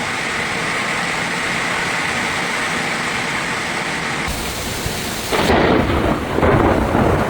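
Heavy rain falling steadily; about four seconds in the sound changes abruptly, and from about five and a half seconds a louder, rough rumble of thunder joins the rain.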